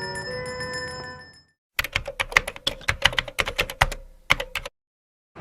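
A simple melody of plain tones stops about a second and a half in. After a brief silence comes an uneven run of sharp clicks, like typing on a keyboard, lasting about three seconds, then it cuts off.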